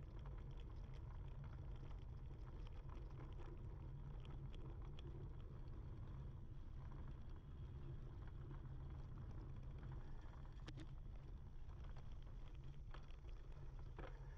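Wind rumbling steadily on an action camera's microphone while a single-speed mountain bike rolls along a dirt or gravel track. Scattered light ticks and clicks come from the tyres and bike.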